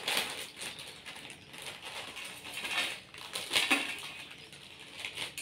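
Foil-lined Lay's potato chip packet being torn open and crinkled, with crackling rustles, then the chips poured out and rattling onto a steel plate.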